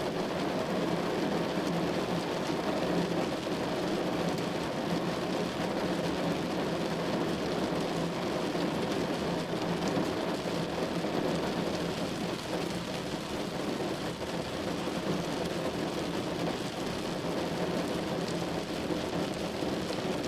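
Steady, unbroken rushing noise like rainfall, level throughout.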